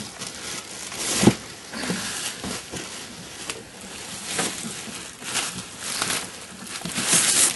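Irregular handling noises: knocks, clunks and rustling as gear is moved about, with a sharp knock about a second in and a louder stretch of rustling near the end.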